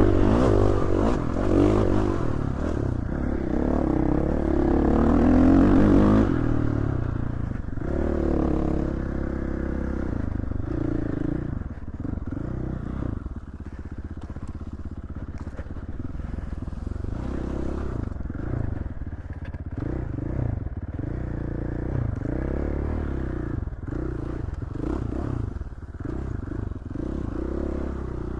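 Dirt bike engine running under changing throttle on a trail ride, rising and falling in pitch. It is loudest and revving hardest for about the first six seconds, then drops to lower revs, with scattered light clatter.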